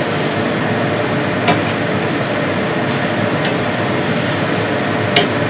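Steady rushing noise of meat cooking in a wok over a gas burner while a wooden spatula stirs it, knocking sharply against the wok about a second and a half in and again near the end.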